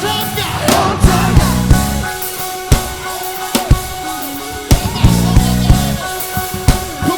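Live worship band playing: drum kit with bass-drum and snare hits over sustained bass and keyboard chords, with some singing in the mix.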